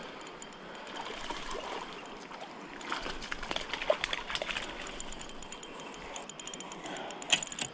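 Water splashing as a hooked small trout is played and reeled in on a spinning rod, with quick clicks from the reel. The splashing and clicking grow busier from about three seconds in.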